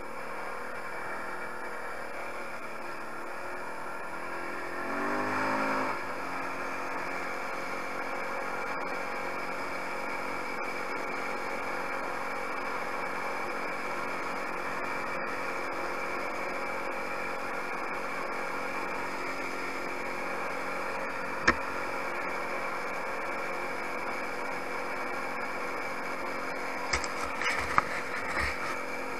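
Engine of a 250 cc Tao quad bike running steadily while riding, revving up briefly about five seconds in. A sharp knock about two-thirds of the way through and a few more knocks near the end.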